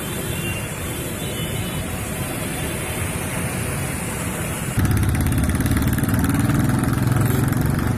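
Motor traffic on a flooded street: motorcycle and scooter engines running as they ride through water. About five seconds in the sound jumps louder and deeper as a car drives through the floodwater.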